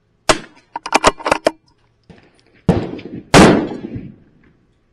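Rifle shots at a shooting range: a sharp crack, a quick run of clicks, then two more shots about half a second apart, the second the loudest with a long echoing tail.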